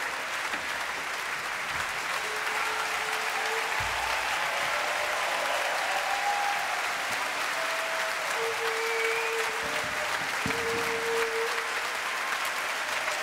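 Theatre audience applauding steadily after a performance.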